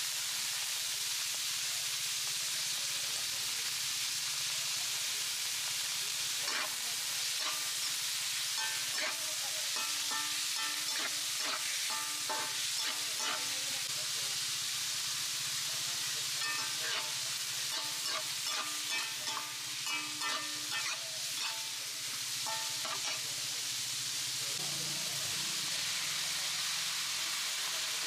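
Kandilan seafood sizzling in a steel wok. A metal spatula stirs it, scraping and clinking against the pan through the middle stretch.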